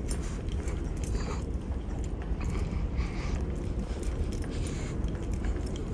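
Steady low background rumble with irregular faint taps and rustles scattered through it.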